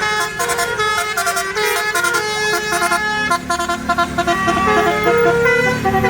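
Bus 'telolet basuri' musical horn, a multi-trumpet horn playing a quick tune of short stepped notes, several pitches sounding together. A low rumble joins in about halfway through.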